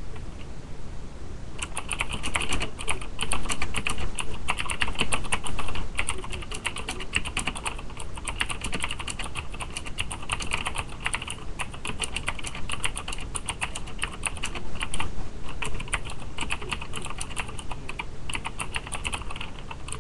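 Typing on a Cherry G80-3000 mechanical keyboard with clicky Cherry MX Blue switches: a rapid, continuous clatter of sharp keystroke clicks that starts about a second and a half in, picked up by a webcam microphone.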